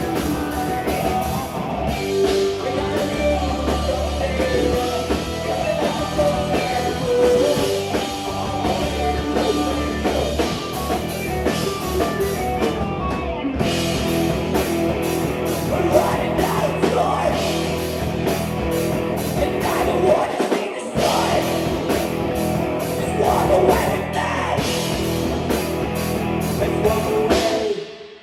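Live rock band playing a song: drum kit, guitars and a lead singer. The music stops abruptly near the end.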